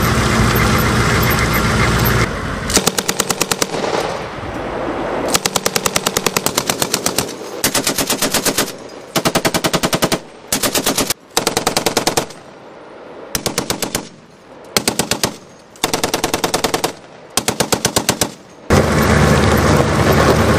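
A Humvee engine runs at first. A vehicle-mounted machine gun then fires about ten short bursts of blanks, several rounds a second, and the engine sound returns near the end.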